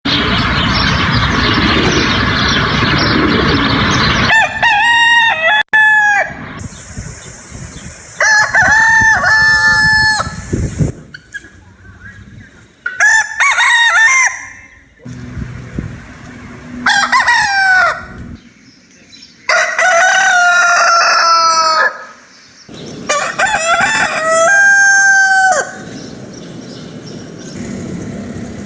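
Rooster crowing, six cock-a-doodle-doos a couple of seconds apart. Before the first crow, about four seconds of loud rushing noise.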